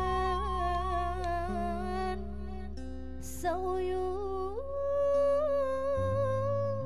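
Traditional Sundanese music: a slow melody of long held, wavering notes that slide between pitches, over sustained low notes that change a few times, with a brief hiss about three seconds in.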